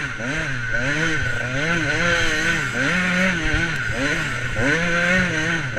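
KTM 85 two-stroke motocross bike engine heard from on board while riding, its revs rising and falling repeatedly as the throttle is worked.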